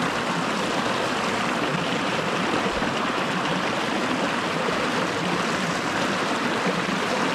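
Small brook running over rocks: a steady, even rush of water.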